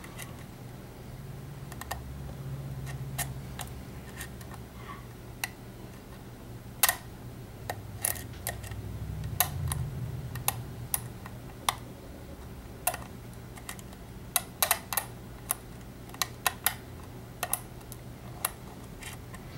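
Small, sharp, irregular clicks of a pick and tension wrench working the pins inside an EVVA ALS euro profile lock cylinder, coming thicker in the second half. This is single-pin picking of a cylinder with spool pins. A low steady hum sits underneath.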